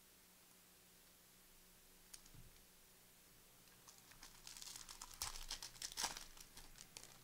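A trading card pack's wrapper crinkling and tearing as the pack is opened: a rustling, crackling run that starts about four seconds in, peaks, and fades away near the end.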